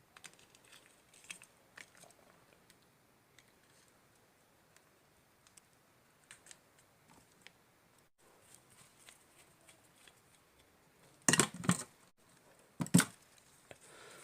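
Light clicks and rustles of small parts and wire being handled and fitted together, with two louder noisy bursts of handling noise near the end, about a second and a half apart.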